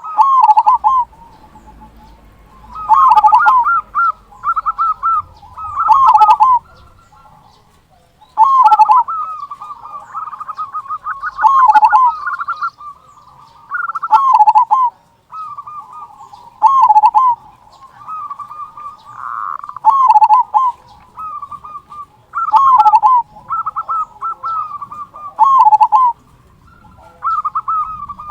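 Zebra dove (perkutut) singing its cooing song over and over, a phrase about every two and a half to three seconds: a quick run of trilled notes ending in a loud, deep 'kung' note.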